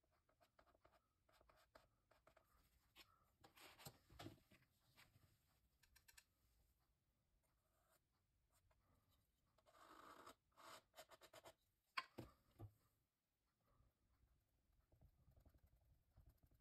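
Faint scraping and scratching of a plastic scraper and then a metal palette knife dragged over textured acrylic paint on a painting board, in short strokes. There is a sharp click about twelve seconds in.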